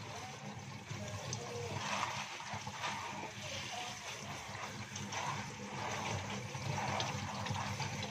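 Tap water running onto spinach leaves in a collapsible colander, splashing as hands turn the leaves, with water draining through the colander into the sink. A low steady hum sits underneath.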